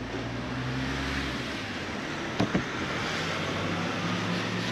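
Steady outdoor background noise with a low hum, and two light knocks about two and a half seconds in.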